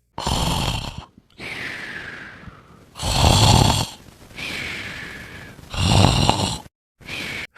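A person snoring: three rasping snores about three seconds apart, with a softer breathy sound between each, and a short one near the end.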